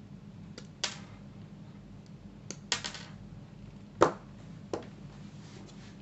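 Wire cutters snipping through insulated electrical wire: a handful of sharp clicks and snaps, the loudest about four seconds in.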